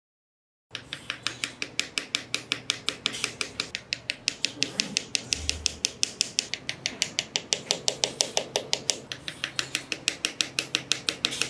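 Small mallet rapidly tapping square wooden posts down into sand, light sharp taps about five or six a second in a steady run.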